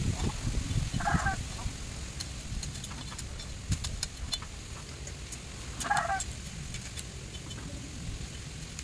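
Bamboo stalk and its leafy branches rustling and cracking as it is cut and stripped with a machete, with scattered sharp snaps of twigs. Two short honking bird calls sound over it, about a second in and again about six seconds in.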